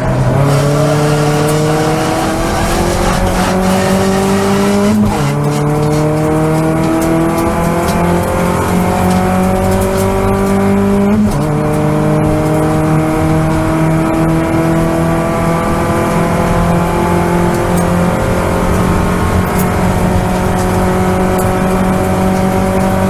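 Toyota Vios race car's four-cylinder engine heard from inside the cabin, accelerating hard: the note rises steadily, drops at gear upshifts about 5 and 11 seconds in, then climbs slowly in the higher gear.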